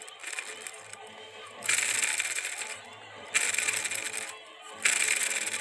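Sakura D5S RC drift car's transmission running loudly in three bursts of a second or so each, its exposed, ungreased gears whirring and rattling. The uploader calls this transmission noisy and says it sounds no matter what.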